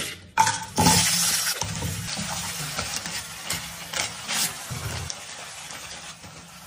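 Onions, tomatoes, chillies and cashews dropped into hot oil in a wok: a couple of knocks, then a loud sizzle about a second in that slowly dies down to a steady fry.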